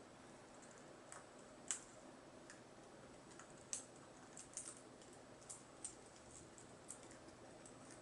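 Sparse, irregular light clicks and taps over near-silent room tone, the sharpest about two and four seconds in.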